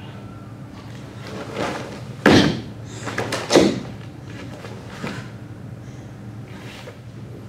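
Bare feet thudding and stamping on a wooden floor, with the swish and snap of a cotton karate gi, during kata moves: a sharp heavy thud a little over two seconds in and another about a second later, with lighter ones around them.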